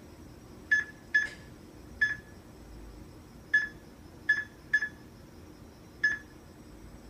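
Stratus time clock's touchscreen keypad beeping once for each key press as numbers are typed in. There are seven short, identical beeps at irregular intervals.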